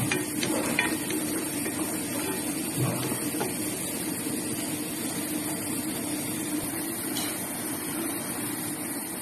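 Chopped onion sizzling in hot oil in a pot, a steady hiss, with a few knocks and scrapes of a wooden spoon against the pot near the start and about three seconds in.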